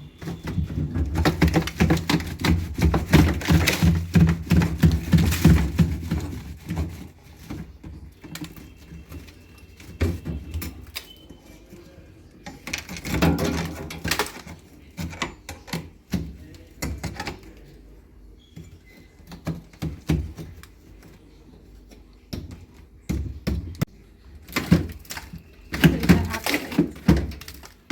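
Ice being knocked and broken loose inside a chest deep freezer during defrosting: bursts of rapid knocking and clattering, the longest in the first several seconds, then shorter bouts.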